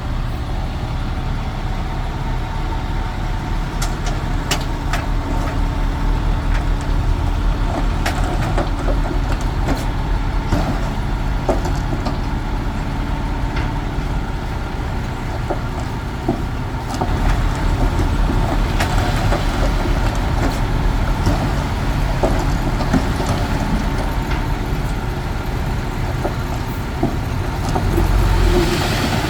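Komatsu D21P bulldozer's diesel engine running steadily under work, with occasional sharp clanks and knocks. The engine gets louder about two-thirds of the way through and again near the end.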